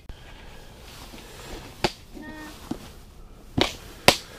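Clear plastic tackle box being handled and opened, giving four sharp plastic clicks and snaps as its latches are undone, the loudest one near the end.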